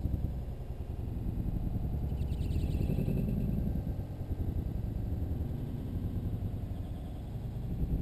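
Backyard sound slowed down along with 120 fps slow-motion footage, so it plays as a deep, continuous rumble. A drawn-out, lowered higher sound slides down about two to three seconds in.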